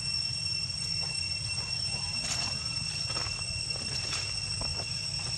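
Outdoor background sound: a steady high-pitched drone over a low rumble, with a few faint clicks and rustles around the middle.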